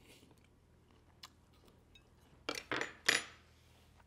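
A man tasting a mouthful of food: quiet mouth sounds, then three short, breathy smacking sounds about two and a half seconds in.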